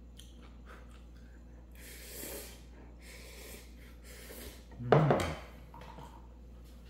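Instant ramyeon noodles being slurped in three airy sucking bursts, about two, three and four seconds in, then a brief louder burst about five seconds in.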